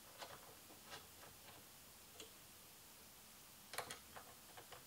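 Near silence broken by faint, scattered clicks and taps of small aluminium cage parts and a bolt being handled and lined up, with a short cluster of louder clicks about four seconds in.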